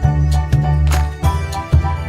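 Upbeat background music with a steady beat, a strong bass line and bright pitched notes; the pattern changes about a second and a quarter in.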